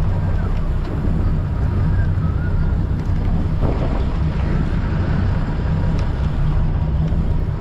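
Sport-fishing boat's engines running with a steady low rumble, mixed with wind on the microphone.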